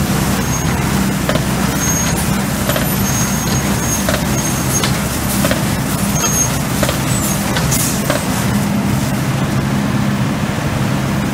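ODB truck-mounted leaf vacuum running steadily with a low, even drone from its engine and fan. Irregular short clicks and knocks come through as leaves and debris are sucked up the intake hose.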